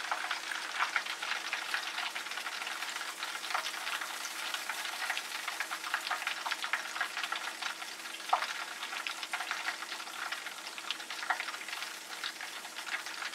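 Hot frying oil sizzling with fine, steady crackling, and a faint steady hum underneath.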